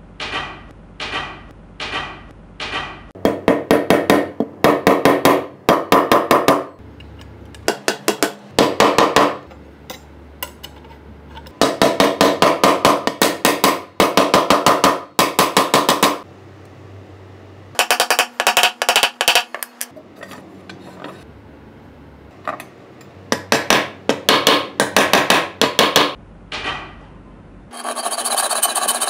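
Hand tools working aluminium bar: a few single strokes about half a second apart, then several runs of quick, closely repeated rasping strokes of cutting and shaping the metal, broken by short pauses.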